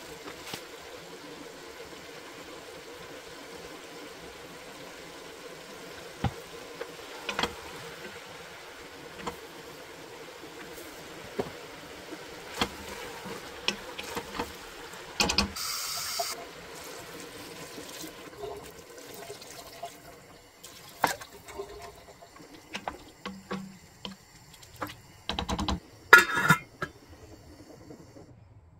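A pot of cabbage casserole cooking on a gas hob, giving a steady bubbling hiss with scattered clicks of a wooden spoon against the stainless steel pot. The hiss fades about two-thirds through, and a few louder knocks and clatters follow near the end.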